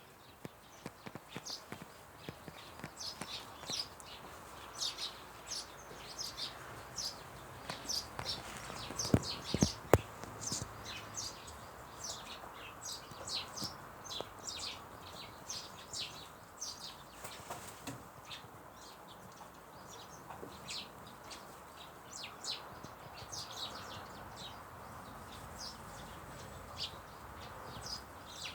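Birds chirping: many short, high chirps in quick succession, over a steady background hum. Two sharp knocks come about nine to ten seconds in.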